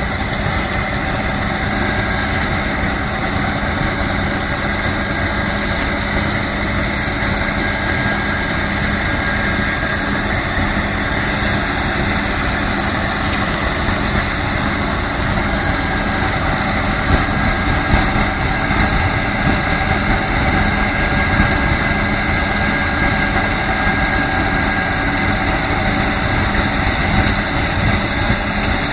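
Corn-harvesting machinery running steadily: an engine's continuous drone with a few steady whining tones over it.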